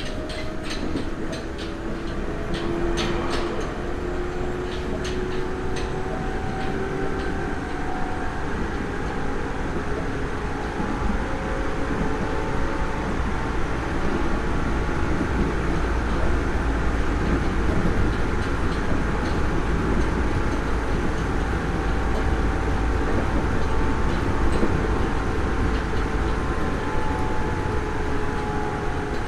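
Nagoya Municipal Subway 3000 series armature-chopper electric train heard from on board, its motor tones rising in pitch as it picks up speed. A run of sharp clicks comes in the first few seconds, then a steady running rumble builds and grows louder.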